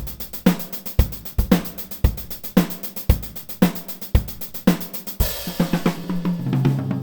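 Sampled acoustic drum kit from Superior Drummer 3 playing a steady groove: kick and snare alternating about twice a second under fast hi-hats. A cymbal crash comes about five seconds in, then a short fill on lower drums before the playback stops.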